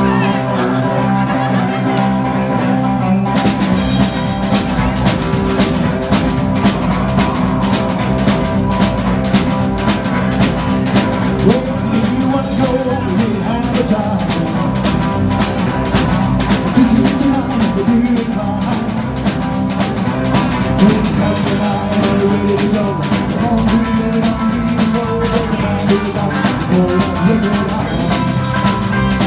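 Live rock and roll band playing: two electric guitars over a drum kit at a steady beat. The sound turns brighter about three seconds in, as cymbals and drums come in fully.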